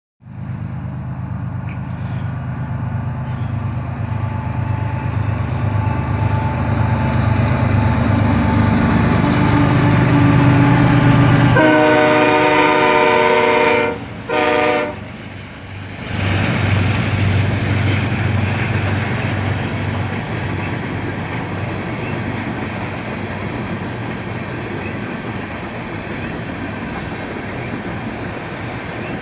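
BNSF coal train: the diesel locomotives' engine rumble grows louder as they approach, then the air horn sounds one long blast and one short blast about twelve seconds in. After that comes the steady clatter of the coal cars rolling past.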